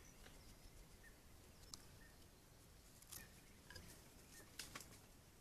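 Faint scratching and rubbing as a furry animal brushes against a trail camera, in a few short clusters. Faint short chirps repeat in the background.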